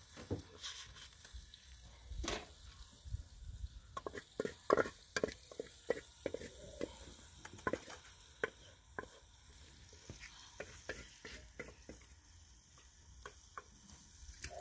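Wooden spoon scraping and knocking against the inside of a metal saucepan in many irregular short strokes, as boiled greens are scraped out into a plastic colander and their cooking water drains off.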